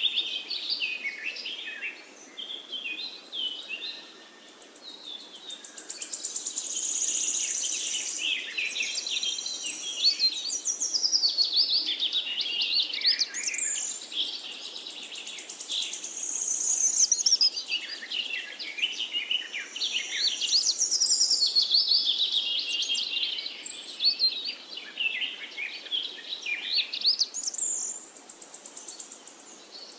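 Songbirds singing: many quick chirps and warbling trills, overlapping almost without a break, with brief lulls a few seconds in and near the end.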